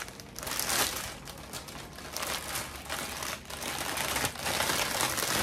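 Clear plastic wrapping crinkling and rustling in the hands as a wreath is unwrapped, a rapid, irregular crackle.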